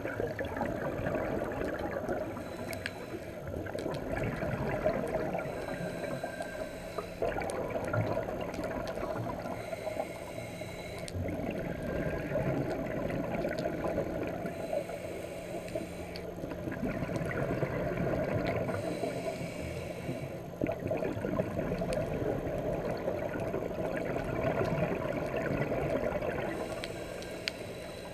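Scuba diver breathing on a regulator, heard underwater: a short hiss of inhalation every few seconds, between which exhaled bubbles gurgle and rumble.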